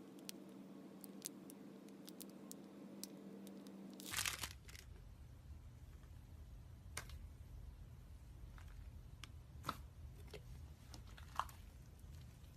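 Slime being squeezed and poked: faint, scattered crackles and clicks, with a short louder crackling burst about four seconds in.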